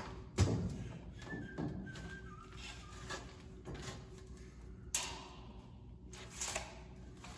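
A heavy thump about half a second in as a person steps up onto a metal stepladder, followed by scattered lighter knocks and handling noises, and a sharp click about five seconds in.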